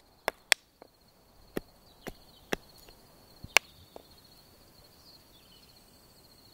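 A small carving axe chopping a green-wood spoon blank against a chopping block: about eight sharp, irregular strikes over the first four seconds, then they stop.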